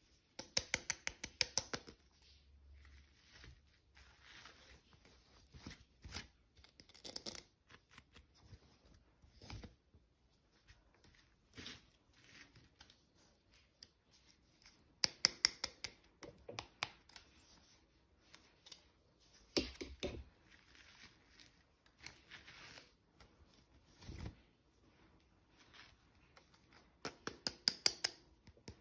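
Toy packaging being opened by hand: three runs of rapid sharp clicks, near the start, about halfway through and near the end, with softer rustling and taps between them.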